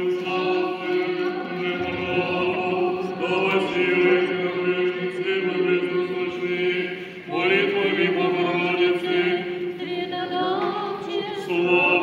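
Old Believer church chant sung by a group of voices, long held notes, with a short breath-break about seven seconds in before the singing resumes.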